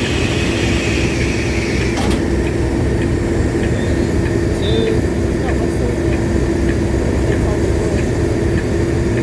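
A locomotive running close by: a steady, loud rumble with a constant hum.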